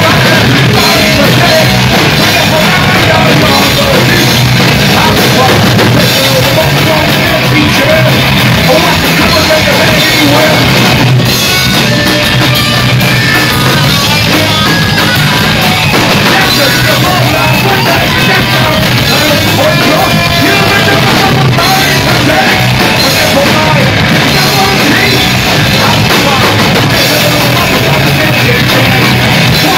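Hardcore punk band playing live and loud: electric guitars and a drum kit, with vocals over them, continuous throughout.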